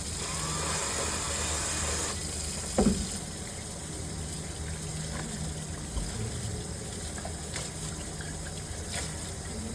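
Steady rush of running water, with one short knock a little under three seconds in.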